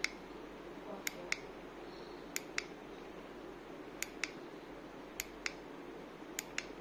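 Water bubble wall panel running, with a steady low bubbling hiss of air rising through the water. Over it, sharp clicks come in pairs a fifth of a second apart, about every second and a quarter.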